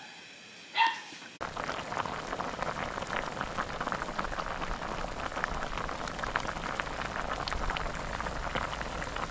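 Pot of coconut-water broth with swimming crabs at a boil: a dense, steady bubbling crackle that starts suddenly about a second and a half in. Just before it comes a single short clink.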